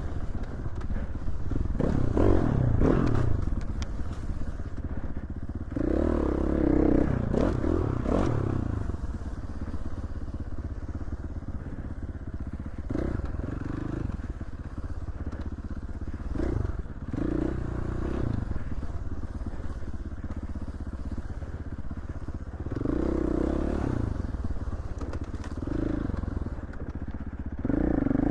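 Dirt bike engine running under way, with the throttle opened in repeated surges between quieter stretches, and some clatter and knocks from the bike over rough ground.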